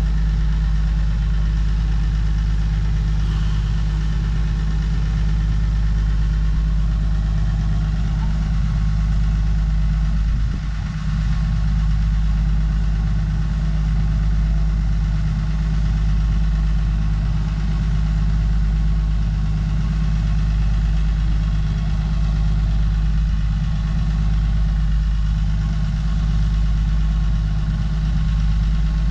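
Heavy diesel excavator engine running steadily at a low, even speed, loud and close, with a brief drop in level about eleven seconds in.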